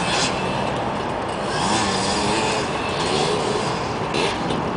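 Dirt bike engines on a motocross track revving, their pitch rising and falling over a steady drone.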